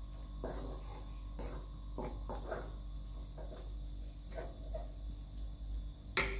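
Wooden spatula stirring and scraping grated carrot halwa in a metal kadai, a soft scrape about every half second, with one sharp knock of the spatula near the end.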